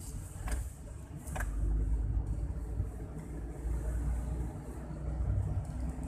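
Car driving at night heard from inside the cabin: a steady low rumble of engine and road noise, with two brief clicks about half a second and a second and a half in.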